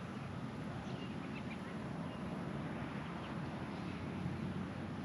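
Steady low outdoor rumble with a few faint bird chirps, several in the first two seconds and one more past the middle.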